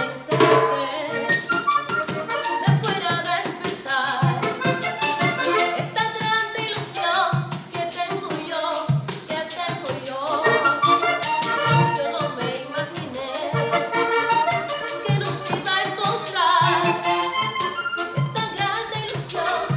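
Live vallenato: a diatonic button accordion playing the melody over the steady rasping scrape of a guacharaca and the strokes of a caja drum.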